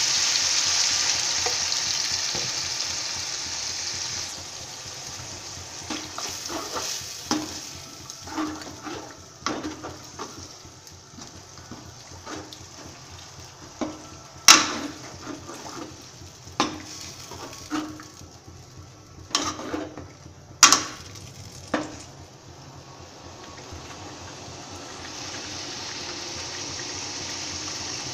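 Curry gravy sizzling in a pan as water is added, the sizzle dying down over the first few seconds. A spoon then stirs and clinks against the pan a dozen or so times. The sizzling comes back steadily near the end as the gravy heats up again.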